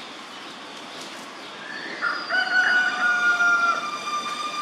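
A rooster crowing once: one long call starting about two seconds in, rising at first, holding a steady pitch, then trailing off lower near the end.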